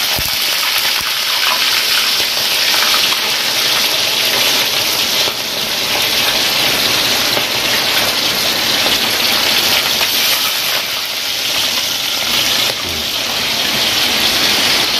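Fish deep-frying in hot oil in a wok: a steady, loud sizzle that dips and swells a couple of times.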